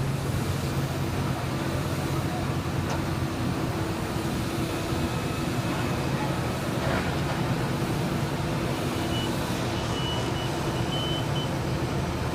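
Heavy construction machinery running steadily with a low, even engine drone.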